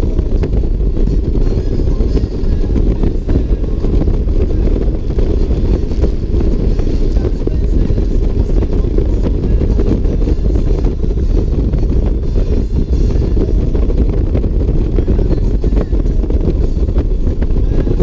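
Steady wind and engine noise from a touring motorcycle cruising at highway speed, the low rush of the wind over the microphone loudest.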